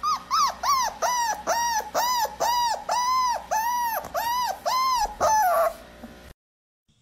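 A dog giving a rapid series of short, hooting howl-like calls, each rising and falling in pitch, about two a second, ending in one longer call that falls in pitch.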